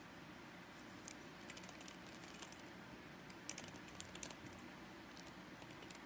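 Faint scattered clicks and ticks from a Fiora Naturals plastic detangling brush being handled, fingers flicking its flexible bristles, mostly in the middle of the stretch, over a steady low hiss.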